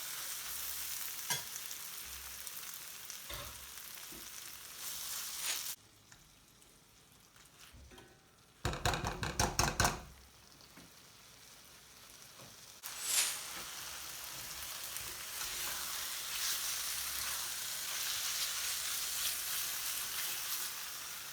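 Chicken pieces sizzling as they fry in hot curry spice paste in a pan, with stirring. The sizzle drops away about six seconds in, a quick clatter of loud strokes comes about nine seconds in, and the sizzling resumes a few seconds later.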